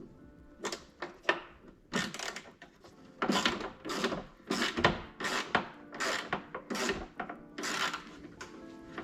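A run of irregular clicks, clunks and scraping from hands working with tools and small parts, about a dozen separate knocks with short pauses between them.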